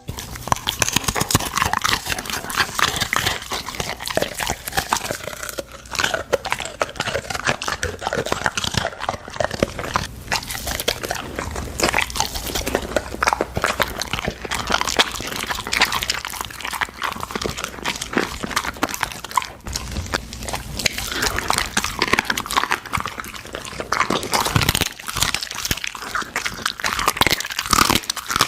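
Golden retriever eating a meal of meat, chewing and crunching with many quick, irregular bites.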